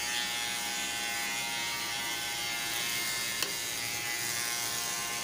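Electric hair clippers running with a steady buzz, with one brief click about three and a half seconds in.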